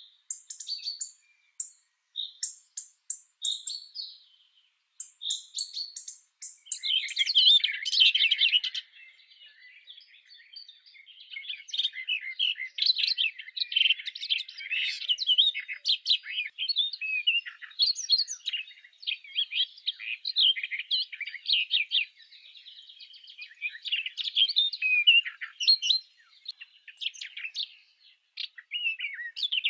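Birds chirping. At first there are a few short, separate chirps; from about seven seconds in, many birds chatter at once in a dense chorus.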